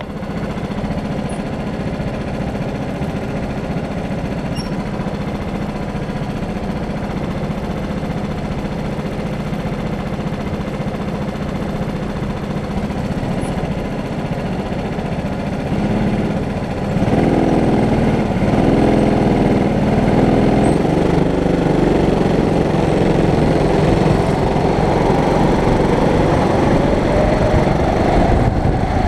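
Sodi rental go-kart engines idling steadily on the grid; a little past halfway they get louder as the karts pull away, the pitch rising and falling with the throttle.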